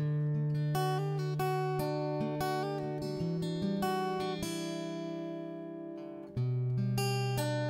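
Background music of plucked acoustic guitar, with notes ringing over a held bass and a new chord struck about six and a half seconds in.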